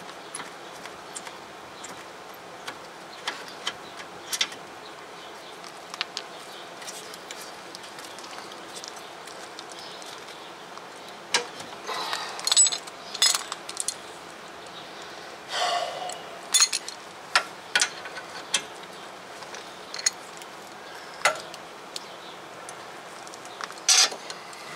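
Scattered metal clinks and clicks of a socket and extension knocking against the rear brake caliper bracket as it is fitted to the 17 mm bracket bolts, with a few short rattles. The clinks come mostly in the second half.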